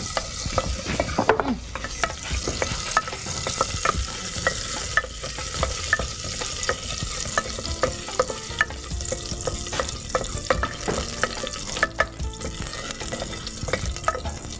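Whole spices (cinnamon, cloves, cardamom, black peppercorns) sizzling in hot oil in a pressure cooker while a spoon stirs them. Frequent irregular sharp clicks from the spoon scraping and the spices popping sound over a steady frying hiss.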